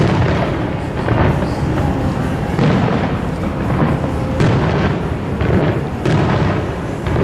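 Aerial fireworks shells bursting one after another, heavy booms about once a second over a continuous rolling rumble.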